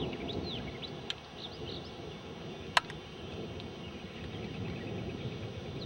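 River water running steadily, with small birds chirping, mostly in the first couple of seconds. A faint click about a second in and a loud sharp click near the middle.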